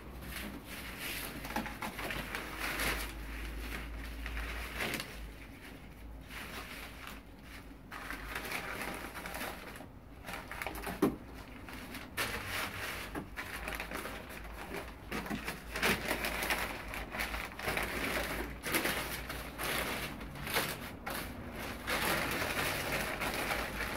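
Newspaper crinkling and rustling as bundles of green onions are rolled up in double sheets of newspaper, with an uneven stream of crackles and a few sharper knocks of handling.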